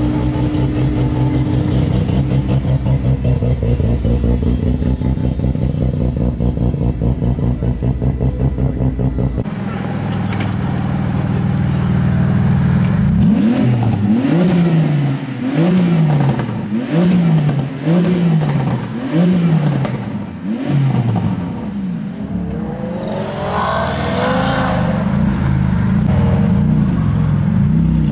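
A high-performance car engine idling with a fast, even exhaust pulse. After a sudden change, the engine is blipped about seven times in quick succession, roughly once a second, each rev rising sharply and falling back, before it settles to idle again.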